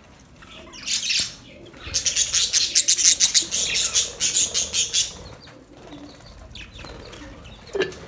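Flock of budgerigars: a short burst of high chirps about a second in, then about three seconds of dense, rapid high-pitched chatter mixed with wing flutter, easing off to scattered chirps.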